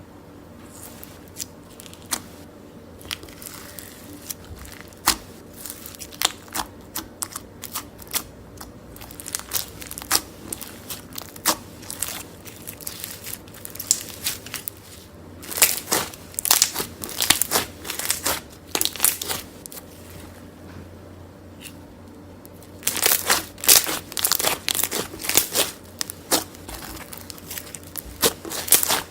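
Slime being squeezed, pulled and poked by hand, giving irregular sticky pops, clicks and crackles, with busier bursts of crackling around 16 seconds in and again from about 23 to 26 seconds.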